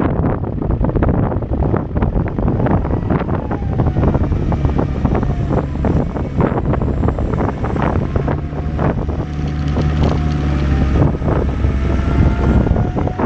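Land Rover Defender 90 driving along a snow-covered trail: a steady engine drone under frequent knocks and rattles, with faint whining tones in the second half.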